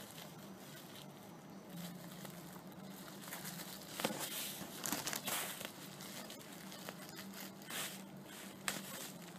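Paper and plastic packaging rustling and crinkling as a music album is unpacked and handled, with a few light clicks and knocks about four seconds in and again near the end.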